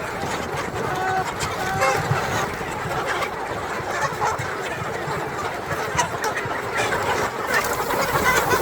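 A large flock of chickens clucking and calling over one another in a dense, steady chatter, with a few clearer single calls in the first couple of seconds.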